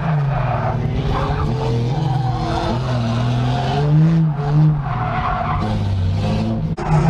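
Drift car's engine heard from inside the cabin, its revs climbing and dropping again and again as the car slides sideways, with tires squealing and skidding on the pavement.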